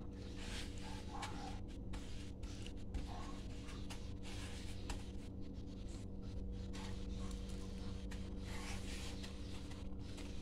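Soft scratchy rubbing noises in bouts of about a second, from a crumb-coated snack ball being handled on a plate, over a steady low hum.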